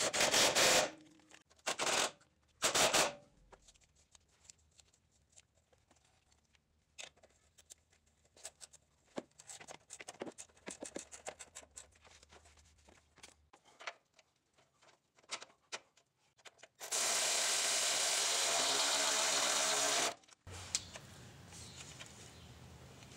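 Metal parts and hand tools knocking a few times, then scattered light clicks and taps while steering parts are handled. Later comes about three seconds of a steady, loud rushing noise that cuts off suddenly.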